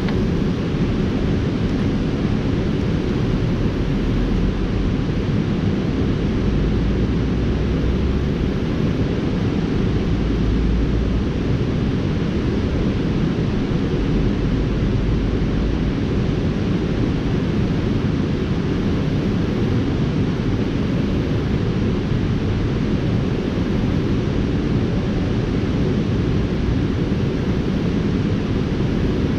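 Steady rush of river water spilling over a low-head dam. It is an even, unbroken noise, heaviest in the low range.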